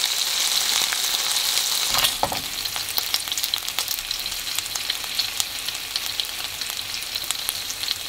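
Soy-marinated pork loin slices sizzling in oil in a nonstick frying pan: a steady hiss with frequent small pops and crackles, a little quieter from about two seconds in.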